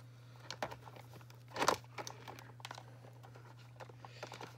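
Handling noise of a plastic fashion doll being pushed into the seat of a plastic toy car: scattered light clicks and rustles of plastic and doll hair, with one louder scrape about a second and a half in. A steady low hum runs underneath.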